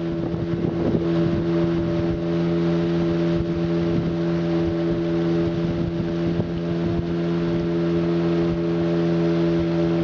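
Motorboat engine running at high speed at a steady, unchanging pitch, with water spray hissing along the hull of a wooden river boat.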